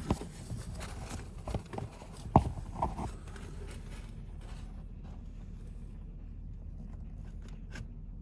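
A few scattered knocks and taps from a camera and light being handled in among the engine parts, the loudest about two and a half seconds in, then a steady low hum.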